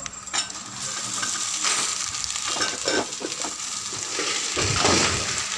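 Chopped okra frying in hot oil with cashews and tempering spices in a metal pot, sizzling steadily while a steel spoon stirs and scrapes the pot, with a louder stretch of stirring near the end.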